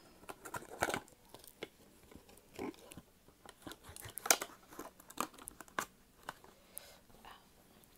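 Hands handling gift packaging: scattered crinkles, rustles and small clicks of fingernails on a box, the sharpest click a little over four seconds in.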